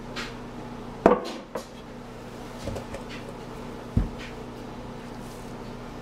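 Handling a wooden slab soap mold and its soap-filled silicone liner on a countertop: a sharp knock about a second in with a lighter one just after, then a dull low thump about four seconds in as the heavy liner of soap is set down.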